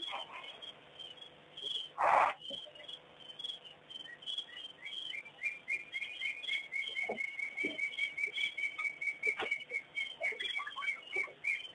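Birds calling at dusk: many short high chirps, and from about five seconds in a long run of quick, evenly spaced notes at one pitch. About two seconds in, a single brief, loud burst of noise stands out above the calls.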